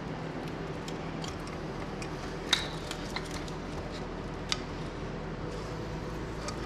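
Steady workshop hum with scattered sharp metallic clicks and clinks of small parts being handled; the loudest comes about two and a half seconds in and another about four and a half seconds in.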